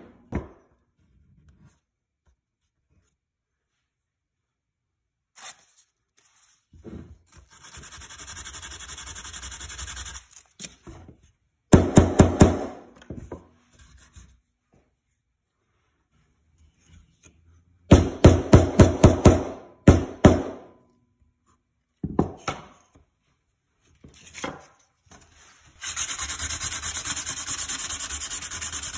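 A soft-faced mallet tapping ivory fret dots into a ukulele fretboard in quick runs of light strikes, with spells of rubbing between. Near the end comes steady hand-sanding of the fretboard with sandpaper, flushing the dots.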